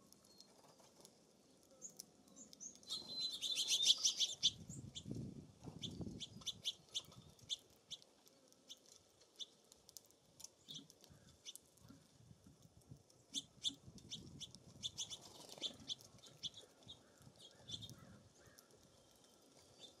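Small songbirds chirping: a dense twittering burst a few seconds in, then scattered short high chirps, with another run of chirps in the second half.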